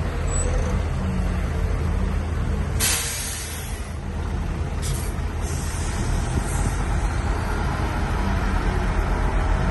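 Shantui bulldozer's diesel engine running steadily under load, with a loud hiss about three seconds in lasting about a second and shorter hisses around five and six seconds.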